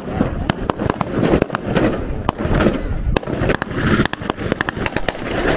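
Blank-firing small arms going off in a mock battle: many sharp cracks in quick, irregular succession over a steady low rumble.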